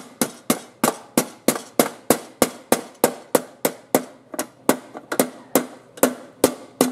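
Ball peen hammer striking a sheet-metal patch set into a lawnmower deck: a steady run of sharp metallic blows, about three a second, each with a brief ring. The metal is being peened down to sit tight against the deck before it is tack-welded.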